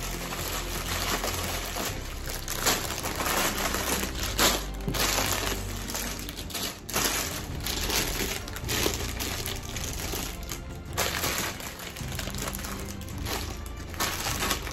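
Plastic bags of Lego pieces crinkling and rustling as they are picked up and handled, with background music underneath.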